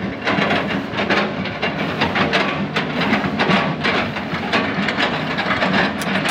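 Hydraulic excavator's diesel engine running steadily under load, with irregular sharp cracks and knocks several times a second as its attachment chops felled oil palm trunks into chips.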